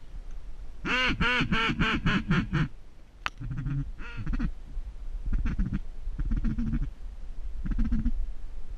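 Duck quacks: a loud run of about seven quacks that come faster and shorter, in the pattern of a hen mallard's descending call, then several shorter groups of quacks.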